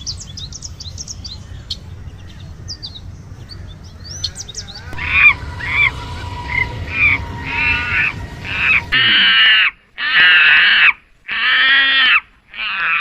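Small birds chirping in quick high notes over a low background rumble. About five seconds in the sound changes to different, lower calls, which build into a run of loud drawn-out cries about a second each near the end.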